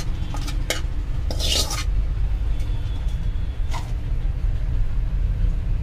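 A steel spoon scraping fried masala and curry leaves out of a metal kadai into a steel serving bowl. There are a few short scrapes and clicks in the first two seconds and another near four seconds, over a steady low rumble.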